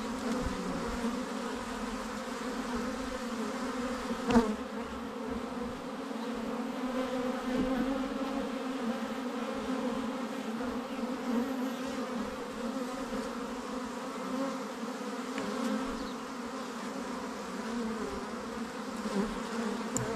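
Honeybees of a colony on orientation flights, buzzing in a steady, dense hum around the hive entrance, with a single sharp tick about four seconds in.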